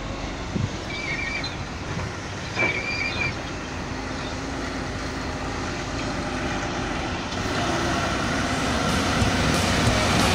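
Four-axle Mercedes-Benz Arocs dump truck driving slowly along a dirt track, its diesel engine growing louder as it approaches. Two short high squeals come in the first few seconds.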